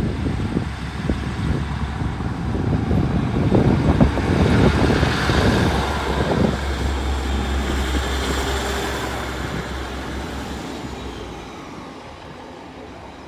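Class 150 Sprinter diesel multiple unit pulling out and passing, its underfloor diesel engines running under power. It is loudest about four seconds in and fades steadily as the train draws away.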